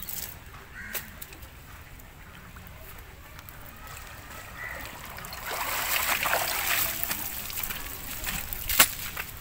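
Shallow water splashing and trickling as someone wades out of it with a wet cast net. The splashing is louder for about two seconds past the middle, and a single sharp click comes near the end.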